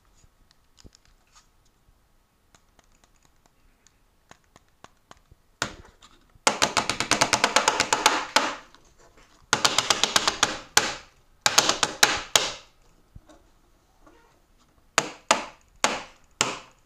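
Sony action camera being shaken and knocked hard: faint handling clicks at first, then three bursts of rapid knocking and a few single sharp knocks near the end. This is a rough vibration test of the loose battery tray, now held tight with a plastic shim.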